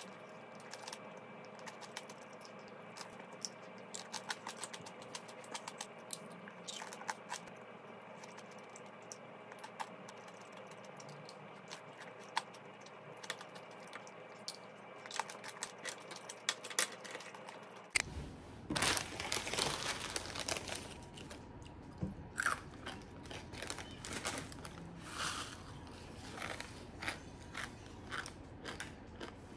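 Close-up crunching and chewing of tanghulu, the hard sugar shell on glazed fruit cracking between the teeth in sharp scattered crunches. About 18 seconds in it gives way to louder, denser crunching and the rustle of a snack packet being handled.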